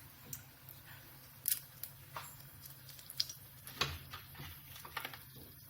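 Whole spices (cinnamon and cardamom) popping in hot oil: a few scattered sharp pops over a low steady hum.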